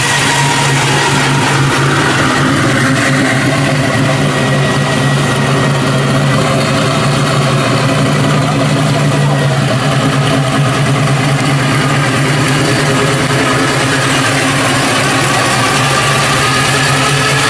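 A 1960s Chevrolet C10 pickup's engine idling steadily through its dual exhaust.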